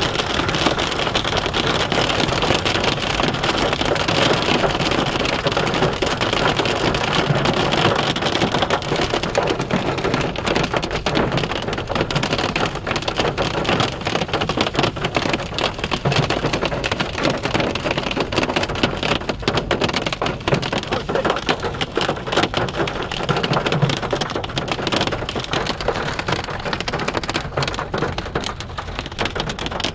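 Heavy thunderstorm rain pelting down, a dense, steady patter of many sharp drop hits, easing off a little near the end.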